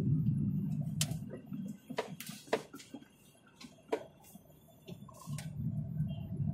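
Car cabin sound while driving: low engine and road rumble that dies away for a few seconds in the middle and then builds back up, with a handful of sharp, irregularly spaced clicks in the quiet stretch.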